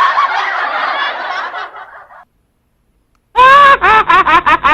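A canned crowd-laughter sound effect, played from a livestream sound card's remote effect buttons, fading out about two seconds in. After a short silence, a loud voice starts near the end, with a narrow, thin sound.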